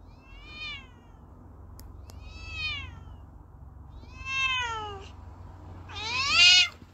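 Domestic cat meowing four times, each call rising and then falling in pitch, the last one the loudest, over a faint low hum.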